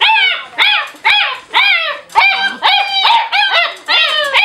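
Several puppies yelping and yipping together: a steady run of short, high calls, each falling in pitch, overlapping at about two or three a second.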